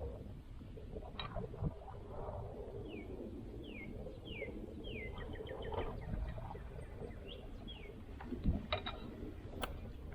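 A bird calling: a series of short notes sliding downward in pitch, several in a row, over a low steady rumble. A few sharp knocks come near the end.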